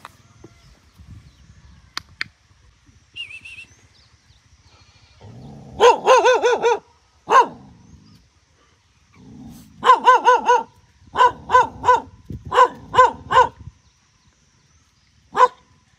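Adult dog barking, the mother of the puppies, in quick runs of several barks about six seconds in and again from about ten seconds in, with single barks near the end.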